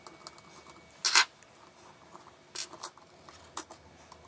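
Short clicks and scrapes of a screwdriver and small metal parts as a Beocord 6000 cassette mechanism is taken apart and its triangular flywheel bracket is lifted off. The loudest is a brief scrape about a second in, with a few smaller clicks around three seconds in.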